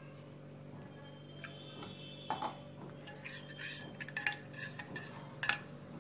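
Metal spoon stirring thick semolina batter in a glass bowl, with irregular clinks of the spoon against the glass that start after about a second and a half. The loudest clink comes near the end.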